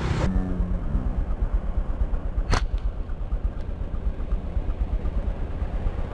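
Motorbike engine running steadily at low speed while riding, a low pulsing hum, with one sharp click about two and a half seconds in.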